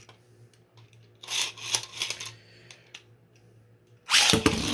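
Plastic clicking and a short rattle a little over a second in, then near the end a sudden loud clatter as Beyblade spinning tops are launched into a plastic stadium, clashing and ringing as they spin.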